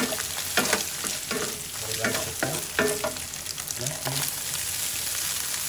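Oil sizzling in a frying pan around scrambled egg, with a spatula scraping and stirring in several short strokes. About four seconds in, cooked rice is tipped into the hot oil and the sizzle settles into a steady hiss.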